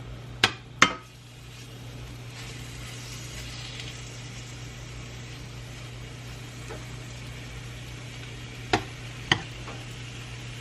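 Chicken pieces frying in a hot pan on medium-high heat, a light, steady sizzle over a low hum. Two sharp knocks about half a second apart come just after the start, and another pair near the end.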